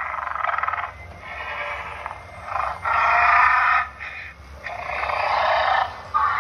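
Animatronic Dilophosaurus playing recorded roars through its built-in speaker: a run of calls, each about a second long, with short breaks between them.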